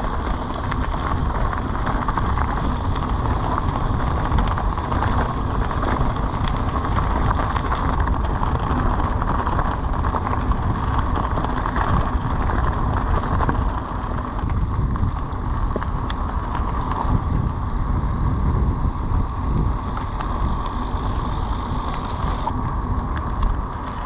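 Wind rushing over the microphone with the steady rolling noise of a moving bicycle.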